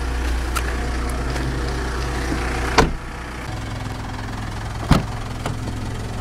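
2012 Mitsubishi Montero Sport engine idling steadily. A car door shuts with a sharp thump almost three seconds in, and the rear door latch clicks open about five seconds in.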